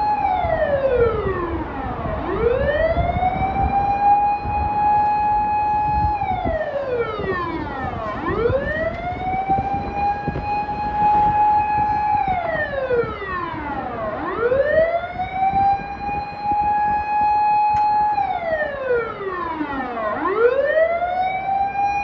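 Vehicle siren wailing in long, slow cycles: the tone holds high for a couple of seconds, drops steeply, then sweeps back up, about once every six seconds and four times over, with a low rumble underneath.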